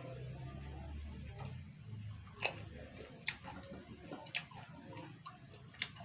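Close-up chewing of rujak, with sharp wet clicks and crunches about once a second over a low steady hum.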